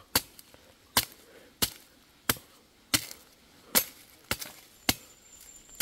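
A series of about nine sharp chops, roughly one every two-thirds of a second: a blade cutting open a young jelly coconut for drinking.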